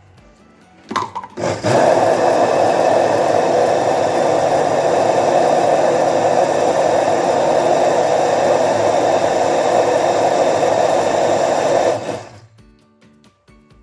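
Countertop glass jug blender running, crushing frozen berries and banana into a thick sorbet. After a short pulse about a second in, the motor runs steadily for about ten seconds and stops near the end. It is working hard against the frozen fruit.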